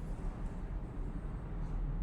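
Steady low rumble of background noise, with no distinct knocks or tool sounds.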